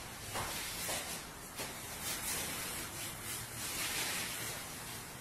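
Paint roller on an extension pole being rolled over a wall: a soft swishing hiss in repeated strokes.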